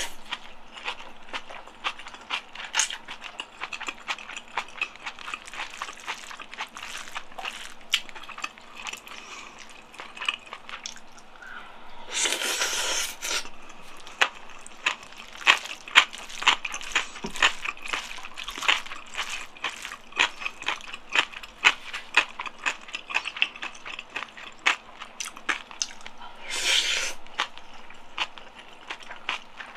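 Close-miked eating sounds of someone eating black bean sauce noodles: wet chewing and irregular mouth clicks, with two longer hissing bursts, one about twelve seconds in and one near the end.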